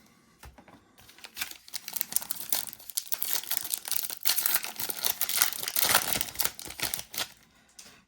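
A trading card pack's foil wrapper being torn open and crinkled, a dense crackling of many small crackles that lasts about six seconds and stops shortly before the end.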